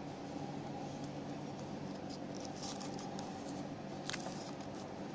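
Steady low background hum with faint small ticks of entomological pins being pushed into a wax plate in a glass petri dish, and one sharper click about four seconds in.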